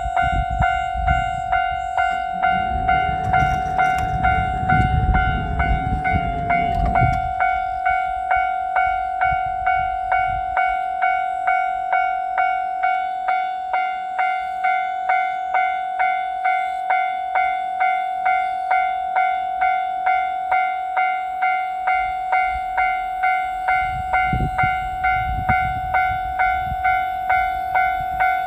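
Railway level crossing warning bell ringing its repeated 'kan-kan' tone, a little under two strikes a second, steady throughout. A low rumble rises under it from about three to seven seconds in, and again near the end.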